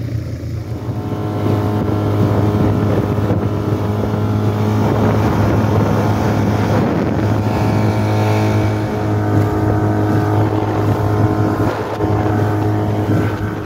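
Small outboard motor on a 10-foot boat running at speed with a steady drone. It picks up about a second and a half in, then holds level.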